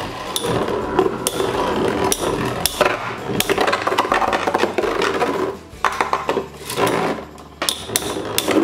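Two metal Infinity Nado 3 spinning tops spinning and scraping around a plastic battle stadium, with a steady rattle broken by sharp clacks at uneven intervals as they collide.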